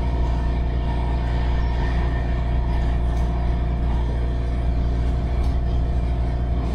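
Inside a MARTA rapid-transit rail car running at speed: a steady low rumble with a steady hum of several tones over it.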